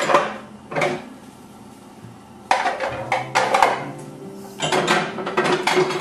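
Dishes and utensils clattering on a kitchen counter: a couple of knocks near the start, then two busier runs of clinks and knocks in the second half.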